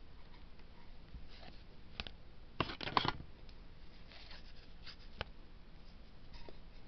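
Cardboard Garbage Pail Kids trading cards being handled in a stack, with soft rustles and flicks as cards slide against each other. The loudest rustling comes about three seconds in.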